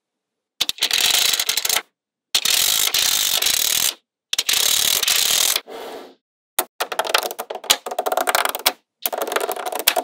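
Small magnetic balls clicking and rattling against one another in fast runs of clicks, in several bursts of a second or two that each cut off suddenly.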